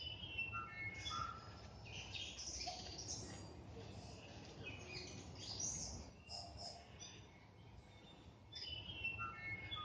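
Native forest birds singing: a busy mix of short whistled notes and chirps, with a similar burst of notes at the start and again near the end, over a steady low rumble.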